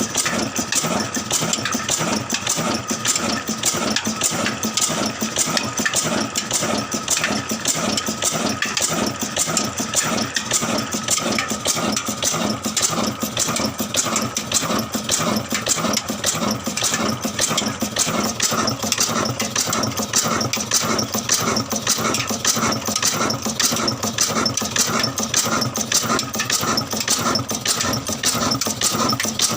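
Old engine running steadily, with a rapid, even beat and a steady whine over it.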